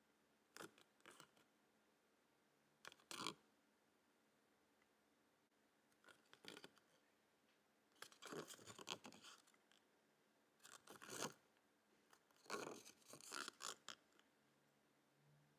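Folded paper collector's checklist leaflet being handled and unfolded: short crinkling, rustling bursts every second or few seconds, with quiet in between, the longest stretches of rustling in the second half.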